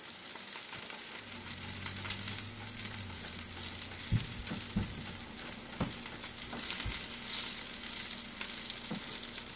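Green beans sizzling as they cook on the stove, a steady frying hiss with a few light knocks, likely from stirring, from about four seconds in.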